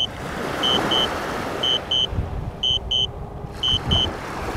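Drone controller sounding its return-to-home alert: a high double beep about once a second as the DJI Spark flies itself home. Under it, steady wind rumble on the microphone.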